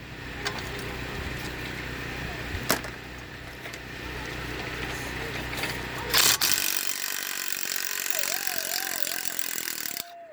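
Impact wrench hammering for about three and a half seconds, starting just after a loud knock about six seconds in and stopping suddenly near the end, as it spins out a broken bolt stud by the nut welded onto it. Before it, a steady low hum with a few sharp knocks.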